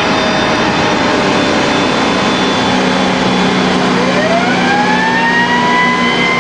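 Fire truck running at speed, its heavy engine and road noise loud and steady. About four seconds in, a siren starts and rises steadily in pitch before levelling off.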